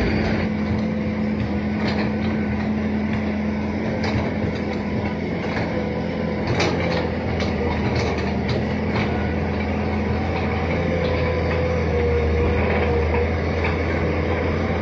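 Heavy construction-machine diesel engine running steadily, a low drone with a faint wavering whine above it, broken by scattered short knocks.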